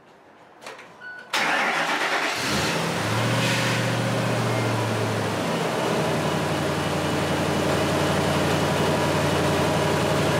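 Car engine being started: the starter cranks and the engine catches about a second in, revs up briefly, then drops back to a steady idle. The start serves as a starter draw test for the clamped-on battery tester.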